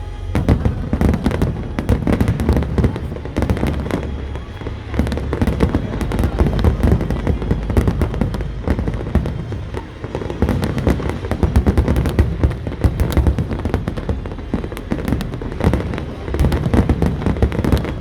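Fireworks display going off in rapid, continuous volleys of bangs and crackling, over a constant low rumble.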